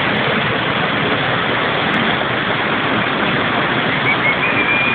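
Mountain stream rushing over rocks: a steady, loud noise of running water. Near the end a faint, thin high tone rises slightly in pitch.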